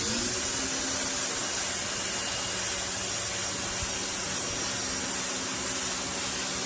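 Electric pressure washer running with its trigger held: the motor and pump spin up, rising briefly in pitch at the start, then run with a steady hum under the hiss of the water jet blasting a fresh oil stain on concrete.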